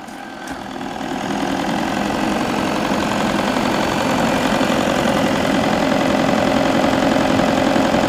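Shark AI Ultra robot vacuum (RV2502AE) running its suction motor and brushes as it drives onto its self-empty dock. A steady whir with a faint hum, growing louder over the first few seconds.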